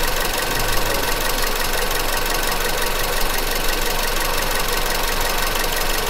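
Toyota Corolla GLI's four-cylinder petrol engine idling steadily while misfiring on one cylinder, a fault later traced to a bad spark plug.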